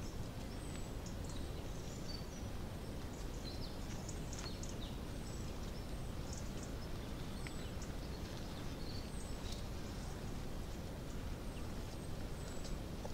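Steady low background rumble, with small birds giving scattered short, high chirps and calls throughout.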